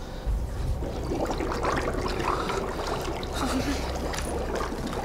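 A thump, then a low rumble under irregular crackling and hissing as something catches fire.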